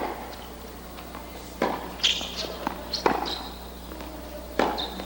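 Tennis ball being struck by rackets and bouncing on an outdoor hard court during a rally: sharp pops about every second and a half, with short high squeaks of shoes on the court between them.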